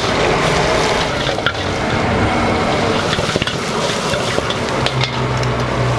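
Rice stir-frying in a carbon-steel wok over a high gas flame: steady sizzling with the metal spatula scraping and now and then clanking sharply against the wok, over a steady low roar of the burner.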